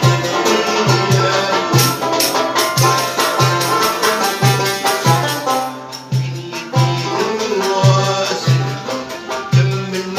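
Algerian chaabi ensemble playing live: mandole and banjo plucking a fast melody over a tar frame drum with jingles, with a low drum beat about twice a second.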